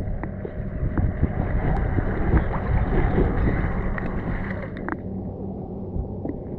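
Water sloshing and splashing close to the microphone, with a low rumble that swells and fades and a few small clicks.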